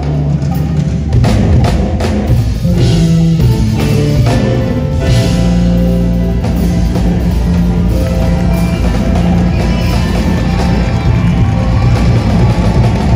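Live jazz-funk band playing: electric bass, console organ and a drum kit with percussion, with held low notes under a steady drum groove.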